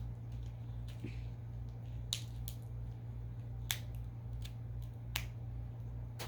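A few sharp plastic clicks, about three clear ones spaced a second and a half apart, as a Push Pop Gummy Roll dispenser is pushed forward. A steady low hum runs underneath.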